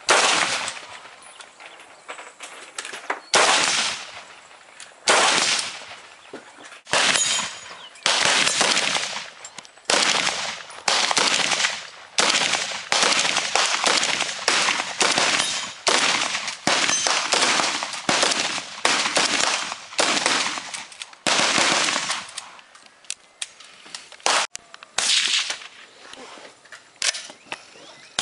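FN SCAR 17S semi-automatic rifle firing 7.62mm NATO rounds: a long run of single shots, each a sharp crack with a short echo. The shots come about two seconds apart at first, then roughly one a second through the middle, with a pause before a few more near the end.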